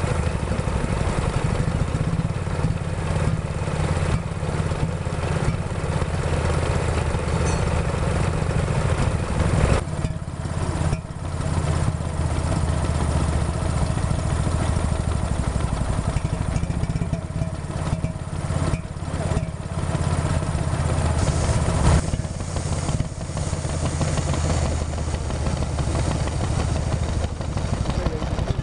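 Small vintage stationary engines running steadily, among them a Villiers engine and a Lister engine, with a low, even beat.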